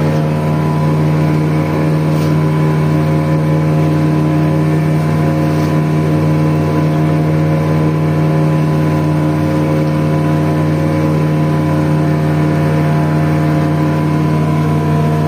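Fishing boat's motor running steadily at cruising speed: a constant, unchanging drone with a steady hiss over it.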